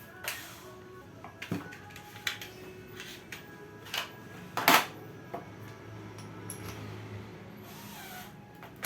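A scattering of light knocks and clicks from hard objects being handled, with one louder, sharper knock about halfway through.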